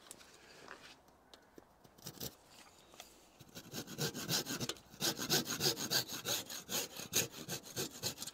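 Hand saw cutting through the protruding end of an oak dowel flush to trim it, in quick back-and-forth strokes. It starts after a quieter first couple of seconds and runs strongest from about four seconds in.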